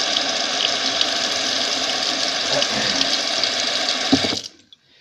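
Bathroom sink tap running steadily while hair is wetted under it. It stops suddenly about four seconds in, with a knock just before as it is shut off.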